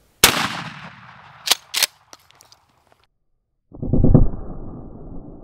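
A single blast from a Remington 870 pump-action shotgun firing a 1-ounce sabot slug, followed by an echo that fades over about a second. About a second after the shot come two sharp clacks as the pump is racked. After a short silence there is a muffled, low rumbling thud.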